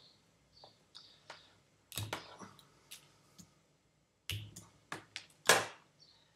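Small objects, a thin stick and a cable, handled close to the microphone: about a dozen irregular sharp clicks and short snaps. The loudest is a longer rasp about five and a half seconds in.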